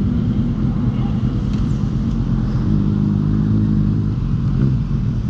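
Kawasaki Z800's inline-four engine idling steadily, its note swelling slightly about halfway through.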